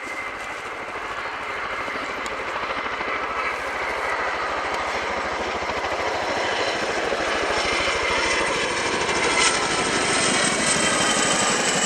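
Boeing Chinook HC6A tandem-rotor helicopter flying in low and closing: the rapid beating of its two rotors grows steadily louder, and a high engine whine comes in over the last few seconds.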